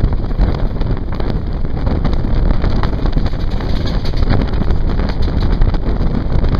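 Heavy wind buffeting the microphone at the open door of a moving Indian Railways passenger coach, over the train's steady running noise.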